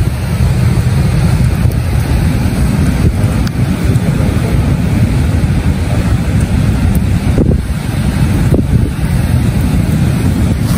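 Wind buffeting the microphone in a loud, steady low rumble, with surf breaking on the shore beneath it.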